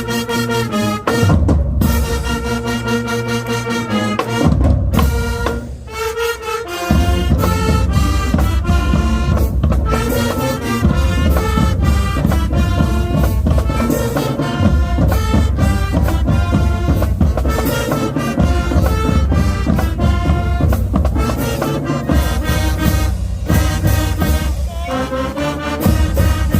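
Middle school marching band playing loud brass over drums. Around five seconds in, the low drums drop out for about two seconds, then come back in.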